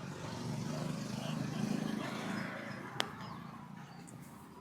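A road vehicle passing on the street, its noise swelling to a peak midway and then fading, over faint background voices, with a single sharp click about three seconds in.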